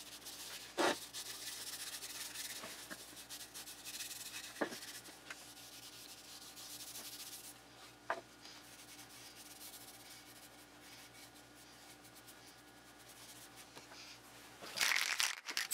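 A cloth rag wiping Danish oil onto a wooden box: a soft, scratchy rubbing, mostly in the first half, with a few light knocks of the wood on the bench. A louder rustle starts just before the end.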